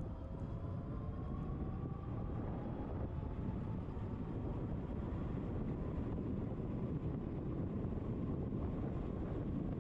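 Wind rushing over the microphone and low road rumble from an Ariel Rider Grizzly e-bike under way. In the first couple of seconds the hub motor's faint whine rises in pitch as the bike speeds up, then sinks back under the wind.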